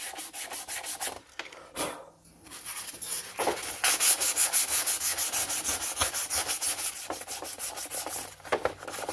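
Sandpaper rubbed by hand back and forth over an oxidized orange plastic part of a Husqvarna 2100 chainsaw, in quick even strokes of about five a second. The strokes stop for about two seconds a little after a second in, then resume faster and louder.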